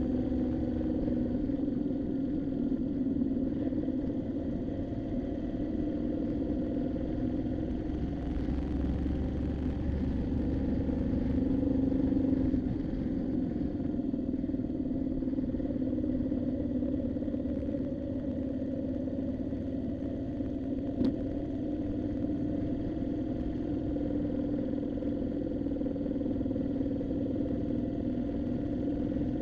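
Motorcycle engine running steadily under way, a continuous drone that swells slightly and then eases off about twelve seconds in. A single short click comes about two-thirds of the way through.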